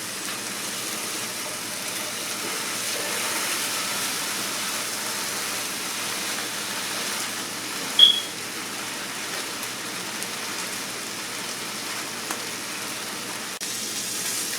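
Salmon fillets frying in a pan greased with cooking spray: a steady sizzle. A brief, sharp high squeak about eight seconds in.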